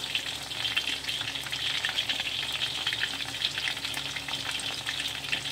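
Marinated chicken pieces frying in hot oil in a wok: a steady sizzle with many small crackling pops.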